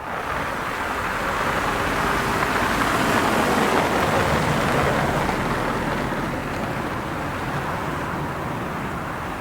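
Road traffic noise: an even rush that swells a few seconds in and slowly eases.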